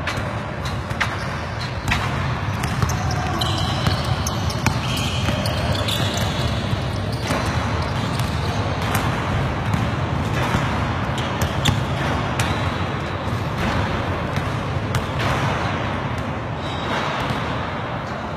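Basketballs bouncing and being tapped against a wall and backboard: a string of irregular sharp thuds.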